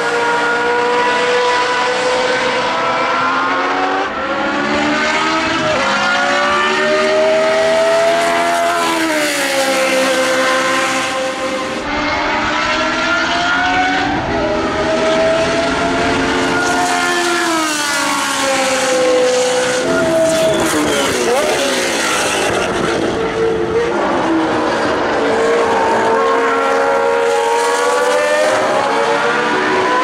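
Ford Cosworth DFV V8 engines of a 1979 Ligier JS11 and a second historic Formula One car at racing speed. The engine note repeatedly climbs through the revs and drops back with gear changes and lifts.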